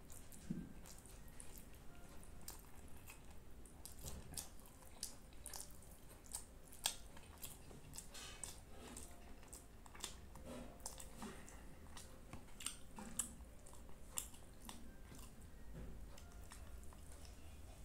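Close-up eating sounds of a person chewing a mouthful of egg fried rice and curry: irregular wet smacks and clicks of the mouth, with soft squishes of fingers gathering rice on the plate.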